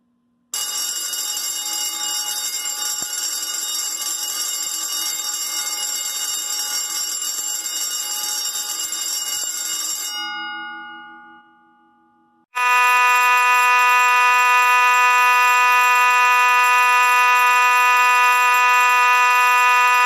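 Simplex 4080 vibrating fire alarm bells, a 4-inch and a 10-inch, ringing together for about ten seconds, then cut off, their gongs dying away. After a couple of seconds a louder Simplex 2901-9838 fire alarm horn starts, sounding steadily together with the 4-inch bell.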